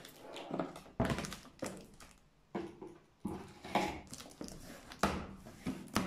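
Large cardboard box being handled and opened: a series of dull thumps and scrapes, about six, as the taped lid is pulled open.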